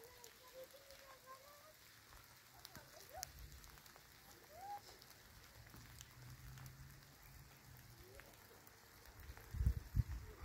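Faint outdoor ambience: light scattered crackling ticks and a few faint wavering distant calls in the first half. About a second before the end, wind starts buffeting the microphone in loud low rumbles.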